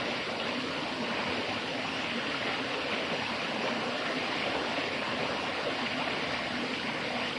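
Steady rushing of a waterfall and its stream, an even wash of water noise with no breaks.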